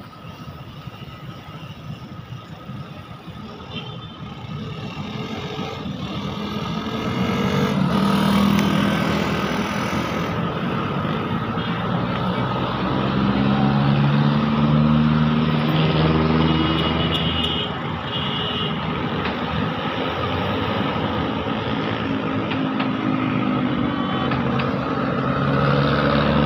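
Road traffic passing a stopped motorcycle at a city intersection: the engines of cars, motorcycles and a jeepney swell and fade as they cross close by, growing louder after a quiet start. Two short high beeps come near the middle.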